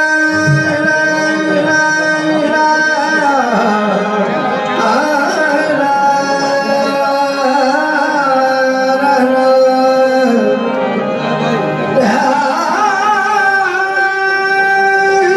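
Qawwali music: a harmonium holding sustained notes and playing melodic runs, with hand-drum accompaniment and ornamented singing.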